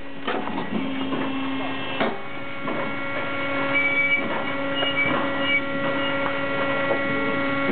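Firewood splitter running with a steady mechanical hum from its motor and hydraulic pump while the operator works its lever, broken by a few sharp knocks.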